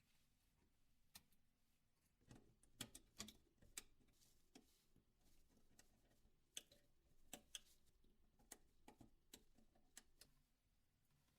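Very faint, scattered small clicks and ticks of a dental tool and tweezers working the metal shielding lids off a phone's circuit board, bunched together about two to four seconds in and then coming every second or so.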